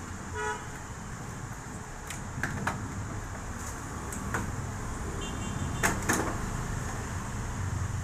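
Plastic clicks and snaps as the control panel of an IFB Elite front-load washing machine is pried loose from its clips, the loudest pair of snaps about six seconds in. A short pitched beep sounds about half a second in, over a low steady background rumble.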